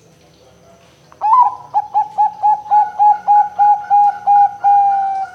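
Zebra dove (perkutut) cooing: starting about a second in, a quick run of about a dozen clipped notes, ending on a longer drawn-out note.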